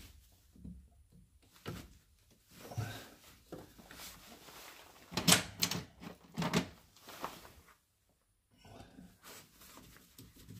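Handling noises as a rubber heater hose is worked onto its valve fitting: scattered clicks, knocks and rubbing, with a cluster of louder knocks a little past halfway.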